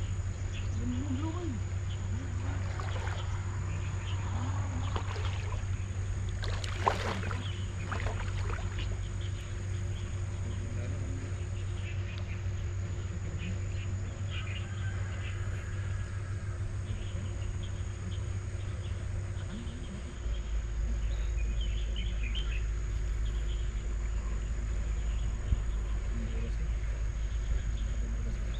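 Insects chirring steadily over a strong low rumble. The rumble drops lower and gets a little louder about twenty seconds in.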